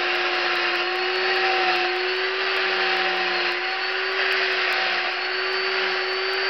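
Chainsaw held at high, steady speed while carving into a wood block, one even high pitch without words.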